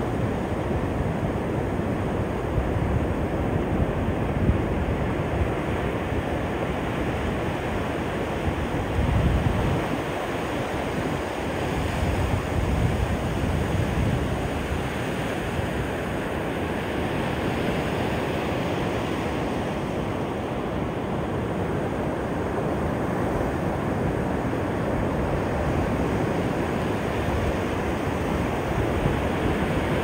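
Ocean surf breaking and washing up the beach in a steady rush, with wind buffeting the microphone in low rumbles, most strongly around a third of the way in.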